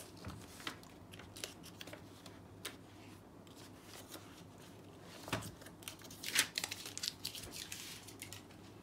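Paper rustling as the pages of a spiral-bound booklet are turned over, with scattered light clicks and taps. The busiest rustling comes a little after the middle.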